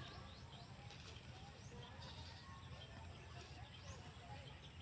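Faint scattered bird chirps over a low steady background rumble.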